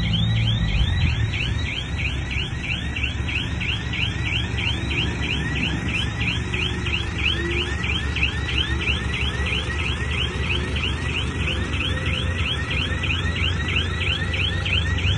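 A heavy diesel engine running steadily under a rapid, evenly repeating chirp that falls in pitch, about three chirps a second, like an electronic alarm.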